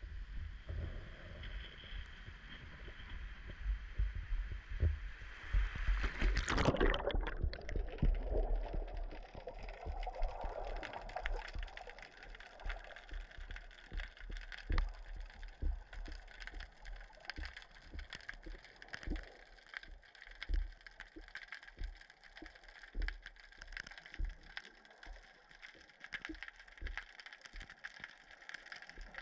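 Seawater sloshing around pier pilings, then a splash about six and a half seconds in as the camera plunges under the surface. After that comes a muffled underwater rush with irregular low thumps.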